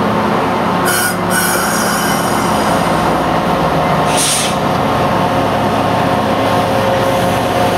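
Via Rail passenger train's stainless-steel cars rolling slowly past at close range, a steady rolling rumble with thin squealing tones from the wheels. Two short hisses break through, about a second in and about four seconds in.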